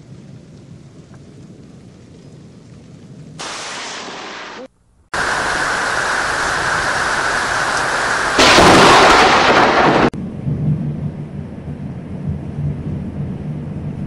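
Thunderstorm audio in short spliced pieces: rain hissing, broken by a brief dead gap about five seconds in. Then, about eight seconds in, a loud crack of thunder from a close lightning strike, which cuts off abruptly after under two seconds, followed by rain with a low rumble.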